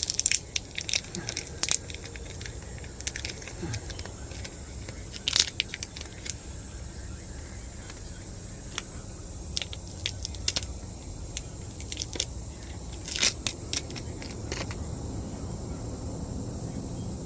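Tyre plug repair kit being handled: scattered clicks, rattles and rustles as a repair strip and the insertion tool are got ready, over a steady background noise.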